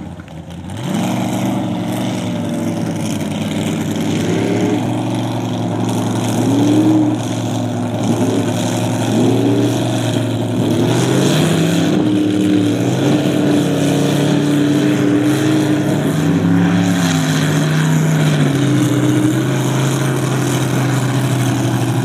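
Mud truck engine revving in a mud pit: several quick throttle blips that rise and fall in pitch, then held at high revs with the pitch shifting up and down.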